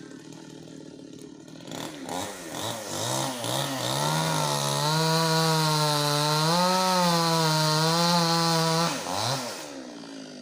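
Two-stroke chainsaw idling, then revved up and held at full throttle for about four seconds while cutting wood, its pitch sagging slightly under load, before dropping back to idle near the end.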